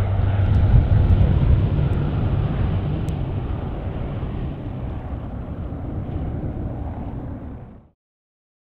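Cessna Caravan single-engine turboprop at take-off power, climbing away, its engine and propeller sound fading steadily. The sound cuts off suddenly near the end.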